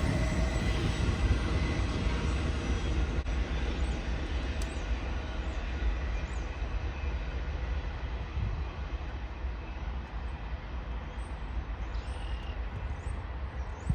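Freight cars of a CN train rolling past at about 32 mph: a steady rumble of wheels on rail that slowly gets quieter.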